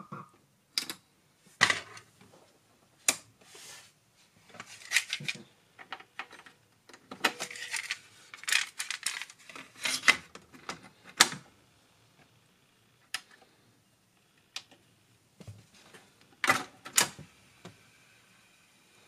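Plastic clicks, clacks and rattles of a cassette being loaded into a Sony three-head cassette deck: the cassette door is opened, the tape pushed into the holder and the door and transport buttons pressed. Near the end the clicking stops and only a faint steady hum of the running deck remains.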